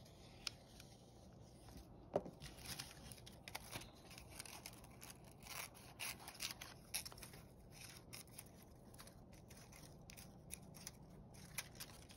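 Scissors snipping through paper, cutting out a paper-cut figure: faint, irregular snips, with a sharper one about two seconds in.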